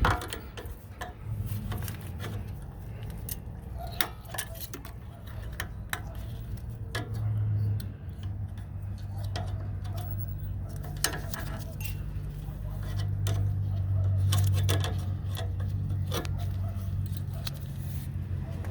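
Scattered small clicks and rattles of an ABS sensor wire retaining clip being worked loose from its bracket by hand, over a steady low hum.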